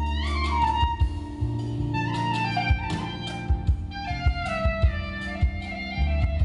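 Clarinet playing an ornamented Bulgarian folk improvisation, with quick runs and slides between notes. Held low notes from the accompaniment sound beneath it, and short sharp strokes are scattered through.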